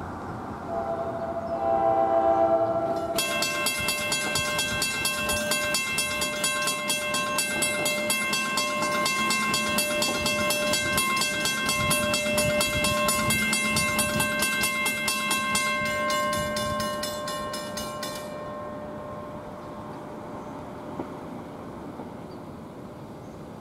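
A train's air horn sounds once, briefly, from a train not yet in sight. Right after it, a railroad grade-crossing bell rings rapidly and steadily for about fifteen seconds, then stops.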